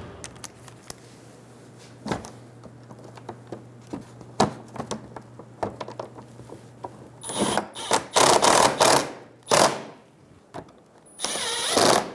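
Cordless impact driver with a socket driving the screws that hold the plastic splash shield under the front bumper, running in four short, loud bursts in the second half. Before the bursts come scattered light clicks and knocks of the screws and tool being handled.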